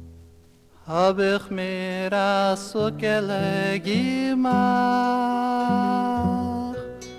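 A Yiddish folk song on a 1967 stereo vinyl record: a faint guitar tone dies away, then male voices enter about a second in, singing a slow, sustained melody together.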